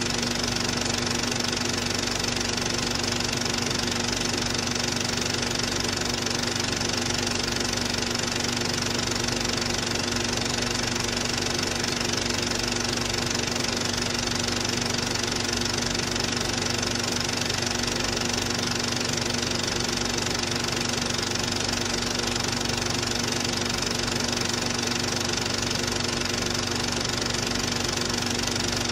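Cine film projector running steadily, its motor and mechanism giving a constant hum.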